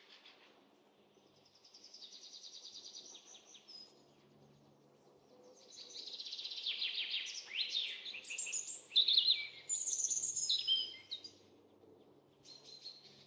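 Songbirds singing: a fast trill about two seconds in, then a run of louder, varied whistled phrases with quick pitch sweeps, over a faint steady low hum. The sound cuts off abruptly at the end.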